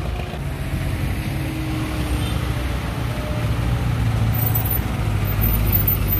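Street traffic passing close by: the engines of a jeepney and a small truck running, with motorcycles, the engine hum growing louder near the end.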